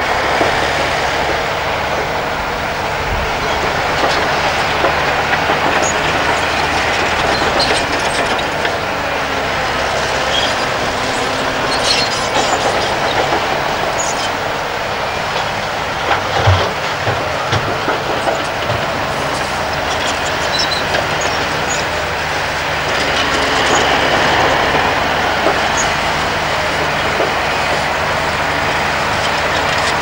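Diesel engines of heavy earthmoving machines running steadily, with rattling and clatter over them. Around the middle come a few heavy thumps as a hydraulic excavator tips earth and rock into a MAN dump truck's steel bed.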